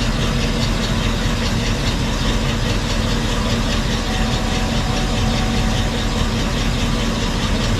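An engine idling steadily with an even, unbroken hum.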